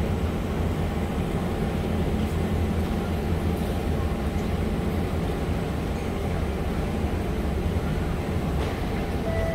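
Steady low hum of a stationary SMRT C651 train standing at a platform with its doors open: its onboard equipment and air-conditioning running. A chime tone starts just before the end.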